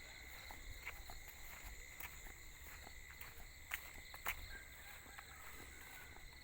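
Faint rural morning ambience: a steady high-pitched insect trill, with a few soft clicks about midway.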